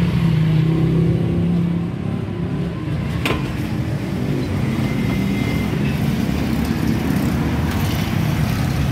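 Street traffic: a motor vehicle's engine running close by over a steady low rumble of road noise, its hum fading after about two seconds. A single sharp click about three seconds in.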